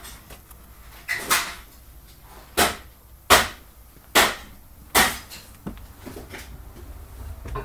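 Footsteps going down a flight of stairs: about six heavy steps less than a second apart, then a few lighter ones near the end.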